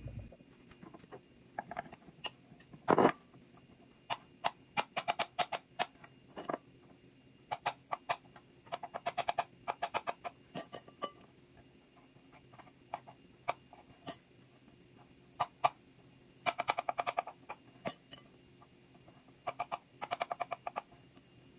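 Kitchen knife chopping white button mushrooms on a wooden cutting board: runs of quick taps with short pauses between them, and one louder knock about three seconds in.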